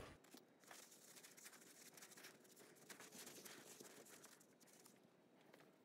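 Near silence, with a faint cloth rubbing as a shop rag wipes valve grinding compound off a freshly lapped engine valve, dying away after about four seconds.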